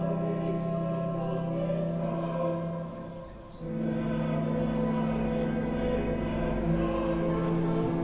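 Choir singing a slow chant in long held notes, with a short break for breath about three seconds in.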